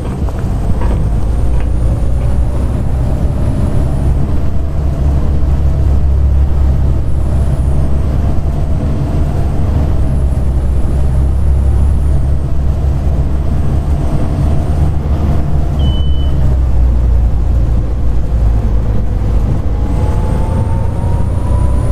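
Volvo B7TL double-decker bus engine running under way, heard from inside the bus: a deep rumble with a high whine, the 'hoover' sound, that rises and cuts off several times. The engine note climbs near the end as the bus accelerates, and a brief high beep sounds about two-thirds of the way through.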